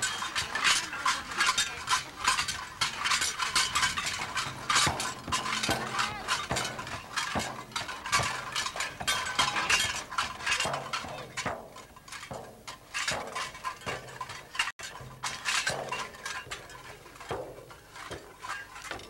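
Nanai shaman's large frame drum beaten with a beater in a fast, uneven rhythm, with bright metallic jingling throughout.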